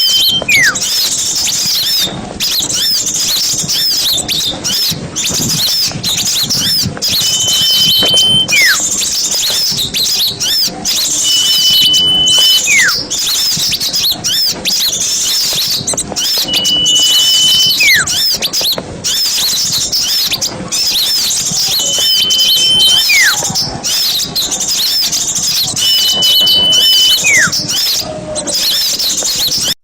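Bird-lure recording of a noisy mixed flock of small birds, with dense, continuous high-pitched chirping and chattering. Every four to five seconds a clearer whistle stands out: a held steady note followed by a note gliding down.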